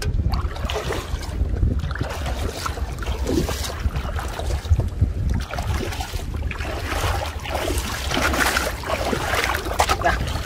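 Wind rumbling on the microphone, with water sloshing and splashing around a person wading in shallow floodwater; the splashing is louder in the second half.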